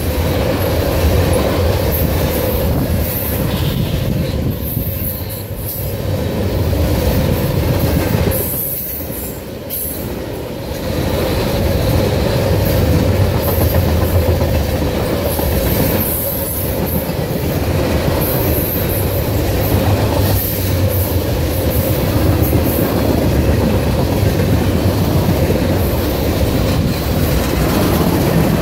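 Freight train of tank cars rolling past at close range: a steady rumble of steel wheels on rail with a constant ringing tone and scattered sharp clanks, dipping briefly in loudness about nine seconds in.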